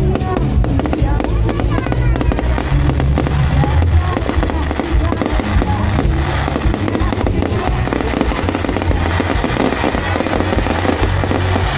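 Fireworks display going off without a break: dense crackling and bangs from fountain and aerial fireworks, over loud music with a heavy bass and voices in the crowd.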